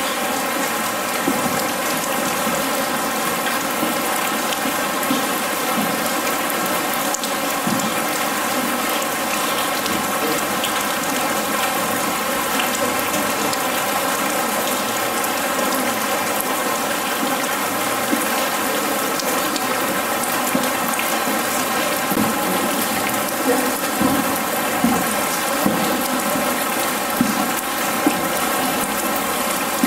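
Steady artificial rain from an installation's sprinkler system pattering on a corrugated metal roof and splashing into water, with a steady hum beneath it. A few louder individual drops and splashes stand out near the end.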